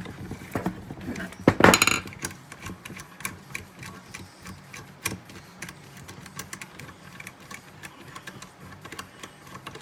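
Small metal parts of a bearing press tool clicking and clattering as it is taken apart from an RC engine's crankcase, with a louder clatter about one and a half seconds in.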